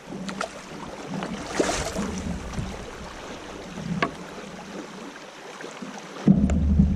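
Shallow swift water rippling over rocks around a canoe, a steady rushing, with a few light knocks and a louder low rumble starting about six seconds in.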